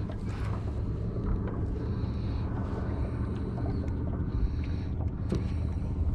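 Boat motor running steadily with a low hum.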